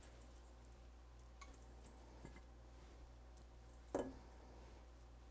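Near silence: room tone with a low hum, a few faint ticks, and one soft knock about four seconds in.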